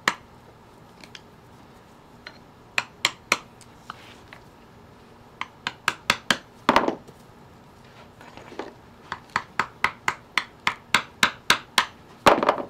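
A hammer tapping a screwdriver wedged between the hide and the base of a deer's antler to pry the hide loose. The sharp taps come in groups, running at about four a second in the last few seconds, with two longer scraping sounds.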